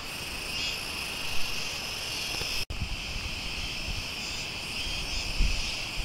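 Cicadas shrilling in a steady, continuous high buzz, cut off for an instant a little before halfway.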